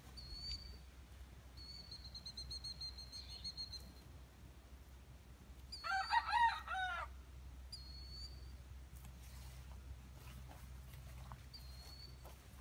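A rooster crows once, about six seconds in, a call of about a second. Thin, high whistled bird notes come several times before and after it.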